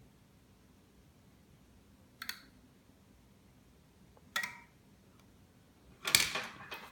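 Clicks of a wireless light switch's button being pressed, about two seconds apart, then a short burst of plastic clatter and handling near the end.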